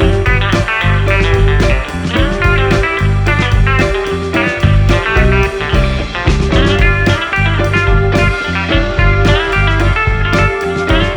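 Background instrumental music with a steady beat and a plucked, guitar-like melody.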